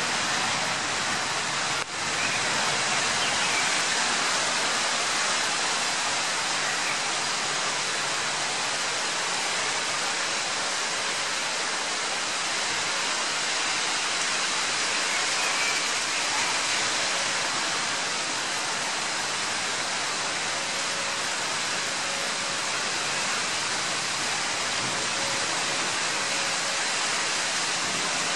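Heavy rain pouring down in a downpour, a dense, even hiss that holds steady throughout.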